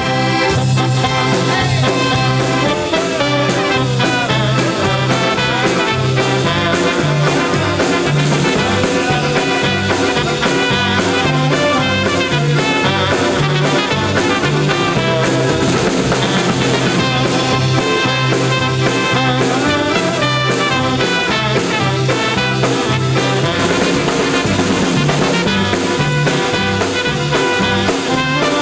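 A polka band playing a polka with trumpets, saxophone, accordion, electric guitar, upright bass and drums. The bass steps back and forth between two notes under the horns.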